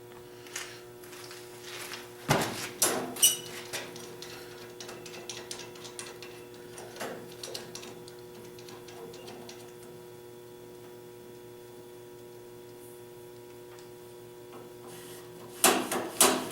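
Hand tools clinking and knocking on metal parts while a cable is fitted: a few sharp clicks about two to four seconds in, a few more around seven seconds, and a quick cluster near the end, one with a short metallic ring. A steady electrical hum runs underneath.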